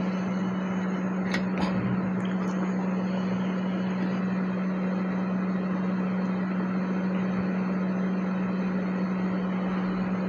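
Steady hum of a small electric blower or fan motor with an even hiss of moving air, on a phone-repair bench. A few faint clicks in the first few seconds.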